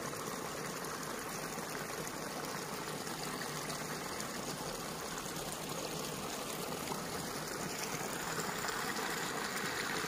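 Steady rush of flowing water, growing slightly louder in the last couple of seconds.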